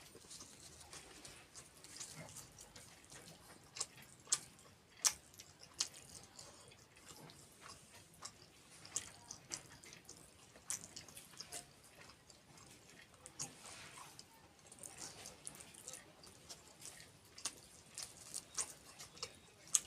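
A person chewing and smacking their lips while eating kheer (rice pudding) with puri, with frequent short, wet mouth clicks at an irregular pace.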